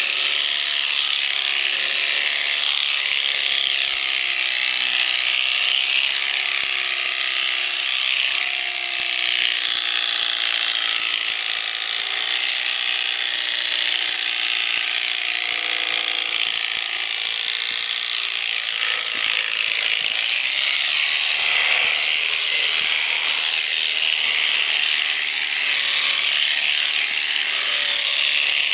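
Electric shearing handpiece running steadily as it cuts through alpaca fleece, its cutter clattering across the comb.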